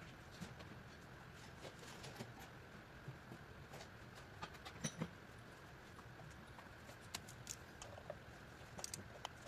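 Faint petrol engine idling roughly with a cylinder-1 misfire: a steady low rumble with a faint whine above it, broken by irregular clicks and ticks.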